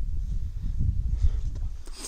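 Wind buffeting the microphone: an uneven low rumble with a faint hiss above it, and a short click near the end.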